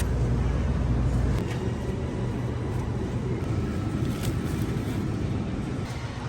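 Low rumble of a car and street noise, with a sharp click at the start; the heaviest rumble drops away about a second and a half in.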